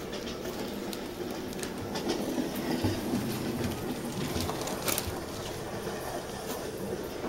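Recorded sound of a running train played through exhibition loudspeakers: a steady rumble with occasional short clicks.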